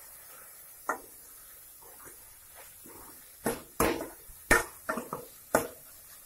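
Steel ladle knocking and scraping against a stainless steel kadhai while stirring sautéed onions and tomatoes. There is a single clink about a second in, then a run of quick clanks in the second half.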